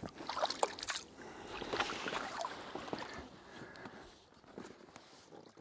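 Water splashing and sloshing at the river's edge with a few irregular knocks, typical of a carp being returned and the landing gear handled; it fades out near the end.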